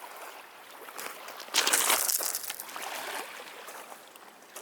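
A sudden splash in lake water about a second and a half in, fading over about a second, over a faint steady wash of water.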